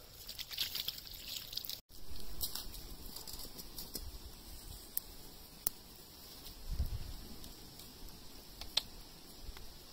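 Water poured from a steel tumbler splashing over hands and dripping onto the ground for the first couple of seconds. After that, a few sharp clicks and a brief low rumble about two-thirds of the way in.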